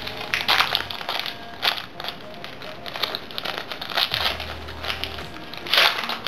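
Foil wrapper of a Pokémon trading card booster pack crinkling and crackling as it is torn open by hand, in irregular bursts, loudest near the end.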